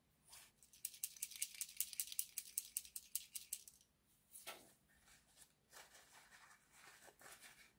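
A quick, even rattle of about nine light clicks a second for roughly three seconds as something is shaken in the hand. Then a short hiss and soft tissue-paper rustling.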